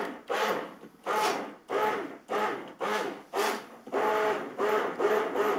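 Immersion blender whirring through mascarpone cream in a glass bowl in short pulses, about two a second, emulsifying the cream.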